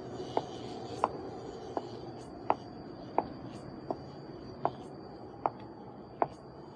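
Water dripping: nine short plinks, about one every three-quarters of a second, over a steady low hiss and a faint high steady tone.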